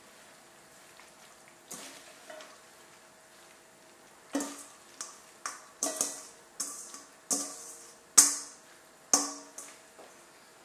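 A metal bowl knocking against the rim of a red enamelled pot as red orache leaves are tipped into it: about eight sharp, ringing metallic clinks from about four seconds in, the loudest near eight seconds.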